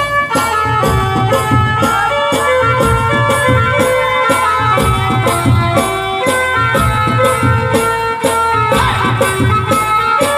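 Loud Indian wedding dance music with a fast, even drumbeat of about three beats a second under a held melody line.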